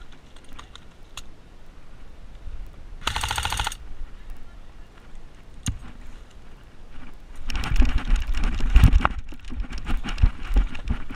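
Airsoft electric gun firing a short full-auto burst of rapid, even shots about three seconds in. A longer, louder stretch of rapid knocks and clatter follows in the second half.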